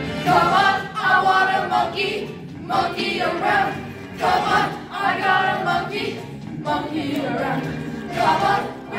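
A group of children's voices singing together in unison, in short phrases of about a second or so with brief breaks between them.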